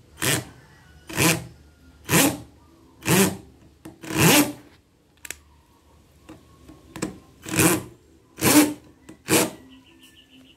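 J.C.K Kawasaki 21V cordless drill driving a small screw into wood in short trigger bursts: five about a second apart, a pause of about three seconds, then three more.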